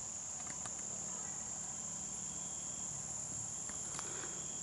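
A steady, high-pitched chorus of insects trilling without a break, with a few faint ticks over it.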